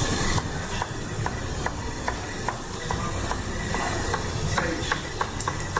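Kitchen knife chopping green capsicum on a cutting board: short, even taps about two or three a second. A steady low rumble and hiss runs underneath.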